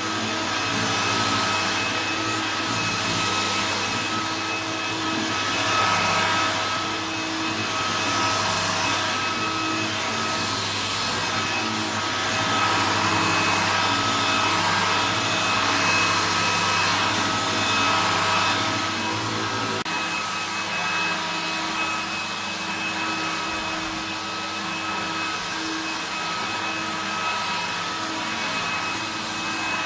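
A 1968 Hoover Convertible 1124 upright vacuum cleaner running loudly, a steady motor whine over rushing air. About two-thirds of the way through, a low hum drops out and it runs a little quieter.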